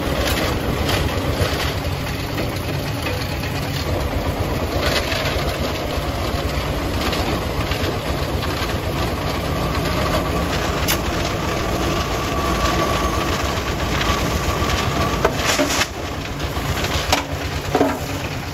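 Diesel engine of a công nông, a homemade Vietnamese three-wheeled truck, running steadily with a fast low chugging, and a few clanks near the end.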